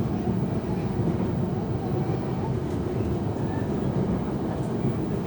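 Jayakarta passenger train running, a steady low rumble of the wheels and carriage on the rails.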